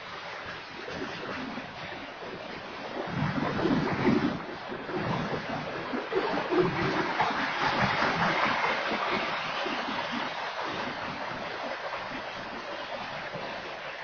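Freight train of tank cars and covered hopper cars rolling past: a steady rushing rumble of steel wheels on the rails with some low knocks, swelling louder in the middle.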